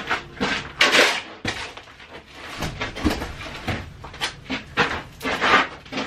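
Aluminium scoop shovel scraping and scooping gravel and dirt off the floor, a rough scrape every second or so.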